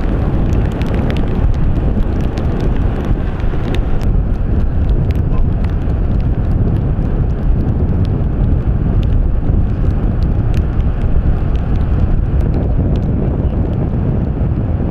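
Strong wind buffeting the microphone, a steady low rumble with scattered faint clicks.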